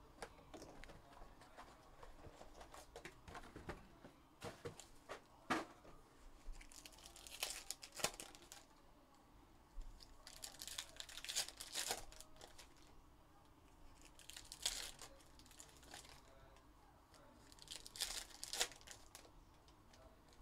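Trading-card box wrap slit with a cutter, then 2021 Upper Deck Goodwin Champions foil packs handled, crinkled and torn open in about four short bursts of tearing in the second half.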